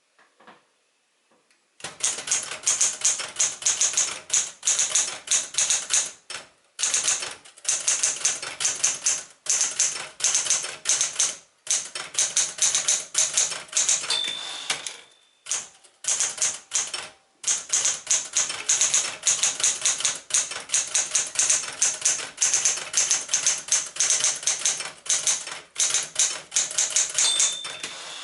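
1968 Smith-Corona Super Sterling manual portable typewriter being typed on in fast runs of keystrokes with short pauses, starting about two seconds in. Its margin bell rings twice, about halfway and near the end, as a line is finished.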